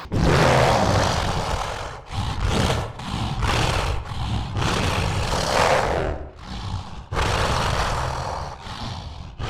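Monster sound effects: a run of rasping creature growls and roars, about seven in a row with brief pauses between them.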